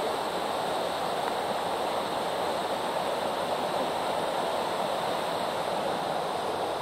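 A creek waterfall's water falling and splashing, a steady, unchanging rush.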